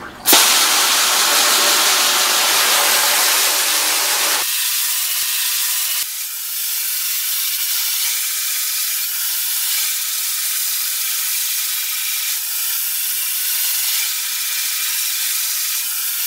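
Water spraying from a handheld garden-hose nozzle onto an emulsion-coated screen-printing screen, wetting the stencil so it softens before washout. The steady hiss becomes thinner and higher about four seconds in.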